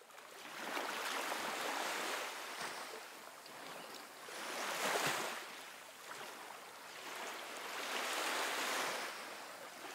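Surf-like rushing noise, swelling and fading in slow waves about every three and a half seconds.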